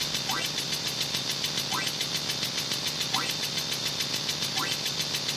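Engine-like mechanical running sound with fast, even pulses of about six a second, and a short rising chirp about every second and a half.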